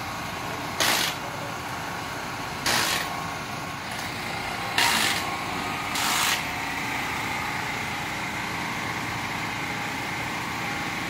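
A power tool runs in four short bursts, roughly two seconds apart, over a steady mechanical hum.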